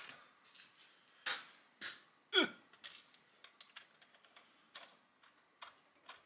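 Small metal clicks and taps as a nut is fitted and spun by hand onto the threaded stud on top of a drill press head. There is one louder knock a little over a second in, and a brief sound sliding down in pitch about two and a half seconds in.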